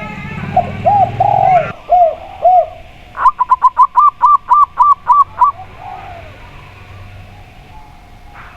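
Two doves cooing in turn: a zebra dove and a spotted dove. First comes a short run of about five lower, arched coos, one of them drawn out. Then, about three seconds in, a quick run of about ten higher, evenly spaced staccato coos, four or five a second, which stops about halfway through.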